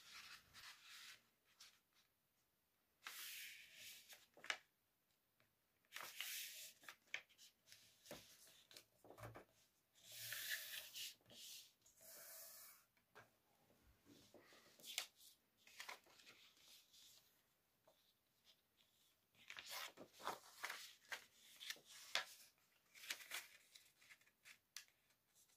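A sheet of paper being folded and creased by hand on a wooden tabletop: faint rustling and sliding in short spells, with a long quiet stretch in the middle.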